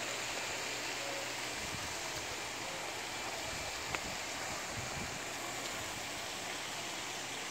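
Small rock fountain in a backyard pond, its jet bubbling and splashing steadily into the water.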